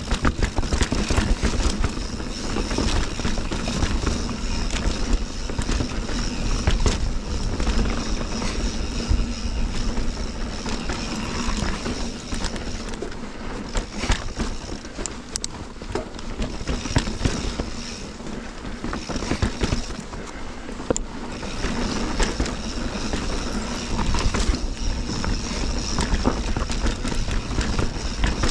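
Mountain bike being ridden over rocky singletrack, heard on a GoPro: continuous tyre and wind noise with frequent rattles and knocks from the bike over the rock.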